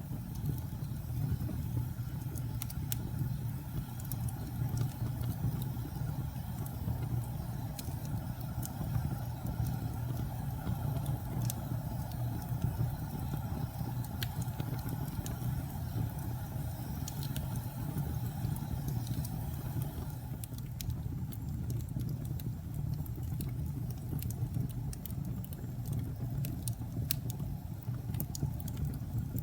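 Logs burning in a fireplace: a steady low rumble of flames with scattered sharp crackles and pops, which come more often near the end.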